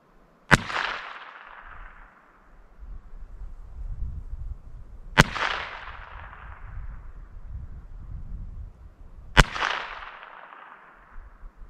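Three shots from a Heritage Rough Rider single-action .22 LR revolver with a 6.5-inch barrel, spaced about four to five seconds apart. Each is a sharp crack followed by an echo that trails off.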